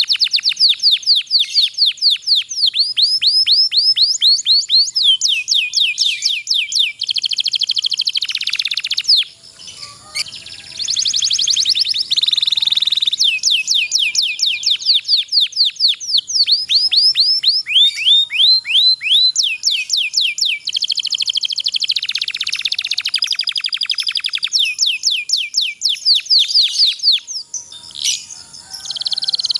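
Domestic canary singing long rolling trills: rapid runs of quick, repeated downward-sweeping notes that switch from one trill to another every few seconds, with brief breaks about ten seconds in and near the end.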